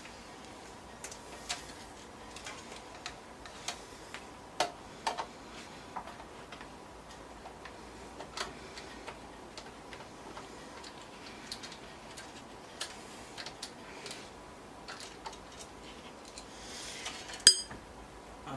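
Screwdriver backing out the power-supply screws from a desktop PC's metal case: scattered small irregular clicks and ticks, with one sharper, louder click near the end.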